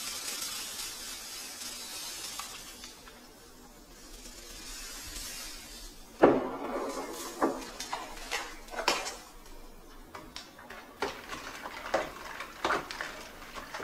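Granulated sugar poured from a paper bag into a plastic pitcher of sorrel, a soft hiss. About six seconds in, a metal spoon stirs the sugar into the drink, knocking and clinking irregularly against the pitcher; the first knock is the loudest.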